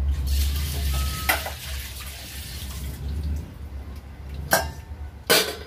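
A steady rushing hiss for about the first three seconds over a low rumble, with a sharp knock about a second in and two more knocks near the end: household kitchen noise.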